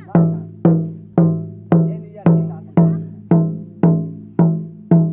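Hand drums, a barrel-shaped mandar and a round drum beaten with a stick, playing a steady beat of about two strokes a second; each stroke rings at a low pitch and dies away before the next.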